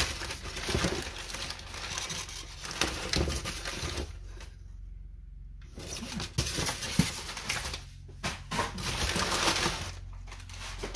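Packing paper rustling and phone charger cables and plastic plugs clicking as they are moved about in a cardboard box, with a quiet pause about four seconds in.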